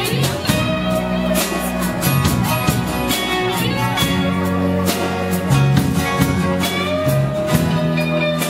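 Live band playing a song: guitars, electric bass and a drum kit with regular drum and cymbal hits.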